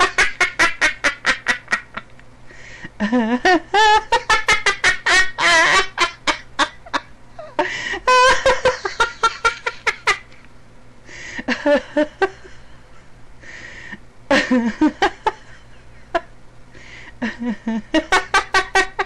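A woman laughing uncontrollably in about six bouts, each a fast run of ha-ha pulses, with short breaks for breath between them.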